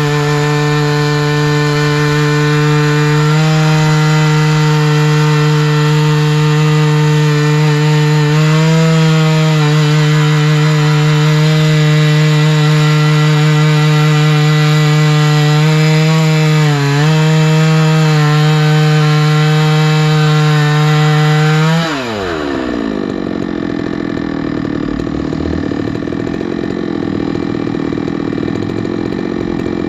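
Chainsaw mill ripping lengthwise through a tamarack log at full throttle, the two-stroke engine holding a steady high pitch under load, with a brief dip about two-thirds of the way in. About 22 seconds in, the throttle is let off and the engine winds down to idle.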